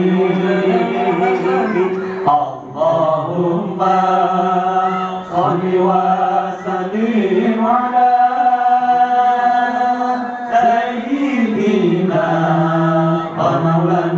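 A group of men chanting an Islamic devotional syair in unison, sung into microphones and amplified. The melody moves slowly with ornamented, held notes, and one long note is held for about two and a half seconds past the middle.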